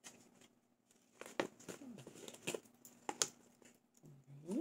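Jewelry packaging being handled: light rustling and a handful of sharp clicks and taps from a stiff black cardboard display card as the piece is worked off it, busiest in the middle.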